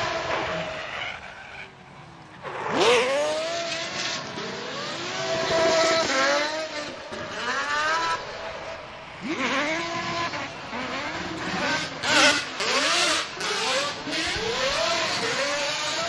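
Aston Martin V12 drift car engine revving hard in repeated surges, its pitch climbing and dropping with each throttle stab, with tyres squealing as the car slides sideways. The engine dips about two seconds in, then surges back loudly.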